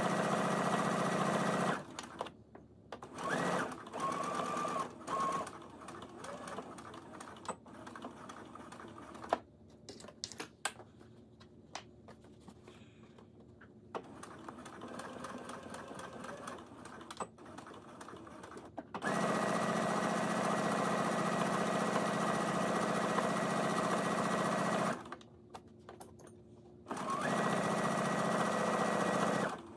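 Baby Lock Brilliant electric sewing machine stitching cotton fabric, running in stretches of a few seconds and stopping in between: a run at the start, a few short starts and stops a few seconds in, a long quieter gap with only light clicks, then two more runs near the end.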